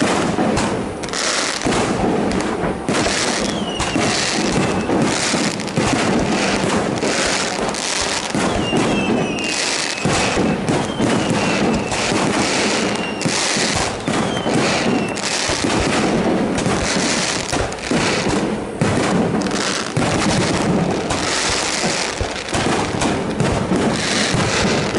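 Aerial fireworks display: a dense, continuous barrage of shell launches and bursts, the bangs and crackle running into one another. A few short falling whistles come in the first half.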